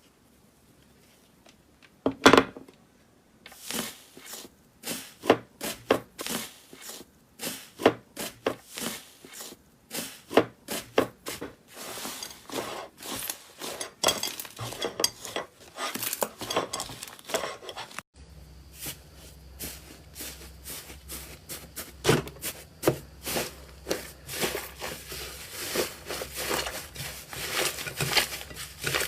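Slime being squeezed and kneaded by hand, making a dense run of quick, irregular clicks and pops.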